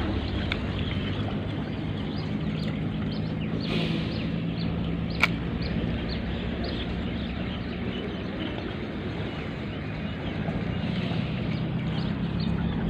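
A steady low engine hum, with scattered short bird chirps over it and one sharp click about five seconds in.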